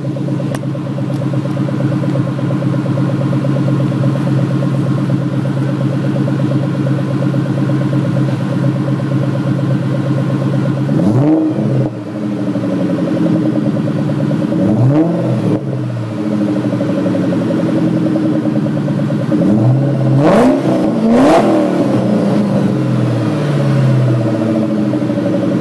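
Supercharged 4.6-litre V8 of a 2003 Mustang Cobra, through a Magnaflow exhaust with an SLP X-pipe, idling steadily and then blipped four times: two single revs around the middle, then two quick revs in close succession later, each falling straight back to idle.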